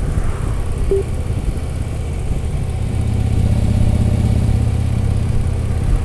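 Touring motorcycle's engine running steadily while riding along a road; its low note grows louder and fuller about halfway through. A short high tone sounds once, about a second in.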